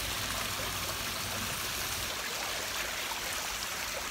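Urn water feature running: water spilling over the rims of several urns and down their sides onto rocks and gravel, a steady even splashing.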